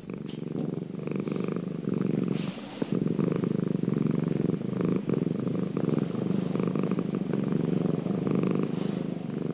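A domestic cat purring: a steady, low, pulsing rumble.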